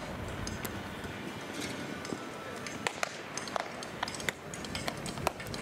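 Baseballs popping sharply into leather gloves at irregular moments as several pairs play catch, over a low murmur of distant voices.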